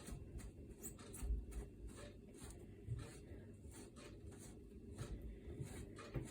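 Faint irregular clicks and rubbing of a dishwasher inlet hose fitting being screwed by hand onto a tap adapter.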